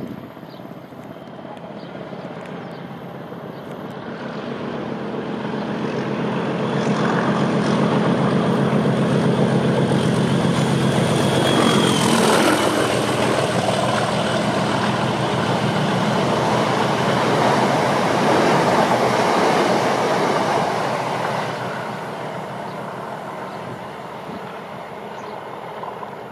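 Class 37 diesel-electric locomotive, with its English Electric V12 engine, passing at speed hauling two Class 379 Electrostar units. The engine's steady drone builds as it approaches and peaks as the locomotive goes by about twelve seconds in. The wheel and rail noise of the hauled units then runs on and fades after about twenty seconds.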